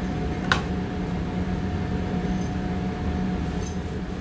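Steady low machine hum of a commercial kitchen, with one sharp click about half a second in and a faint clink near the end.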